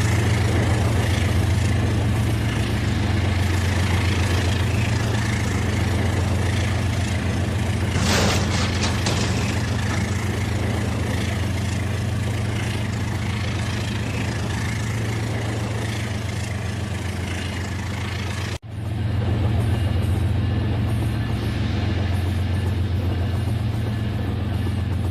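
Battery-powered toy train running on its track: a steady motor drone with a fast, fine clatter. There is a short hiss about eight seconds in, and the sound cuts out for an instant a little past two-thirds of the way through.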